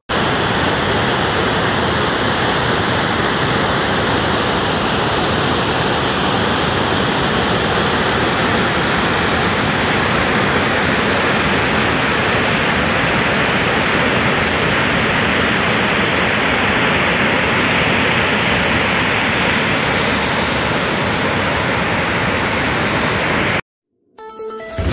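Water from a dam's automatic siphon spillway rushing out in a steady, loud torrent of churning water. The siphons have opened by themselves because the reservoir has risen after heavy rains. The sound cuts off suddenly near the end.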